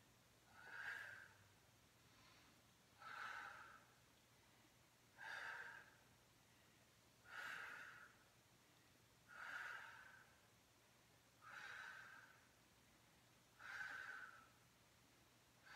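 A woman's breathing, close to the microphone: short, audible breaths, seven of them evenly spaced about two seconds apart, paced with repeated leg bend-and-straighten reps.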